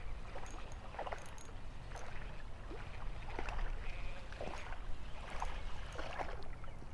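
Spinning reel being cranked as a hooked crappie is reeled in, giving short soft ticks about two a second. The fish splashes at the surface near the end.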